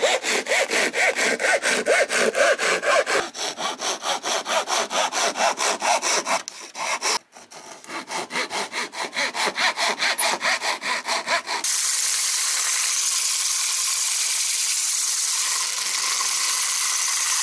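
Hand saw cutting through a wooden sanding disc in quick, even back-and-forth strokes, with a brief pause partway. About two-thirds of the way through it gives way to a steady, even hiss as the trimmed disc spins on a cordless drill.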